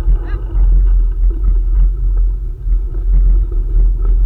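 Steady low wind rumble buffeting the microphone while riding, with a brief faint rising whine about a quarter of a second in.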